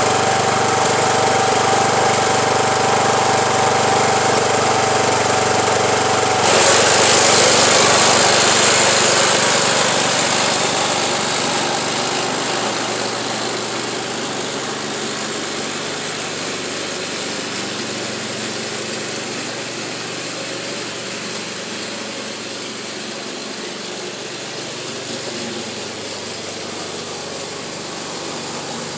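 Craftsman YT3000 riding lawn tractor's engine running, steady at first; about six seconds in it turns louder and rougher, then fades and settles lower as the tractor moves off. The owner says it sounds like it's burning oil and suspects a failed head gasket.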